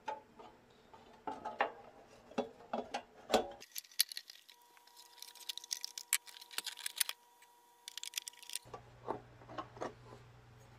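Light clicks, knocks and metallic clinks as a sheet-metal reflector and a fluorescent tube are fitted into the lamp shade of a banker's desk lamp, the tube being twisted into its end sockets near the end. A low steady hum comes in near the end.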